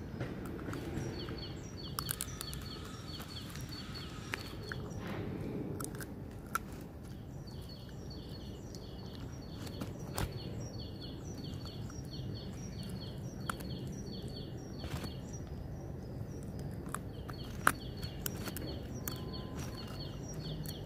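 Husky puppy gnawing a stick, with scattered clicks and cracks of teeth on wood; the sharpest crack comes about three-quarters through. A bird chirps in quick runs of repeated high notes over a steady low outdoor rumble.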